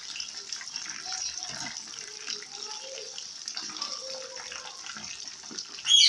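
Pomfret pieces deep-frying in hot oil in a wok: a steady sizzle with constant small crackles. Near the end a sudden, much louder burst of sizzling as a piece is turned over with a wire skimmer and goes back into the oil.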